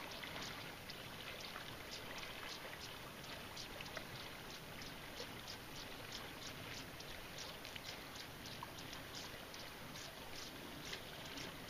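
Faint lake water lapping and trickling: many small, irregular splashy ticks, a few each second, over a low steady hiss.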